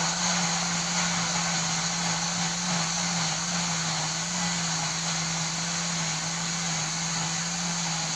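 Electric countertop blender running steadily, grinding a spice paste of garlic, shallots, lemongrass and chilli; the motor holds one even pitch.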